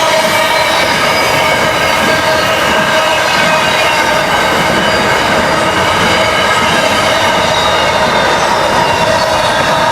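Freight train wagons rolling past at steady speed, with a continuous high-pitched wheel squeal ringing over the rumble of the wheels on the rails.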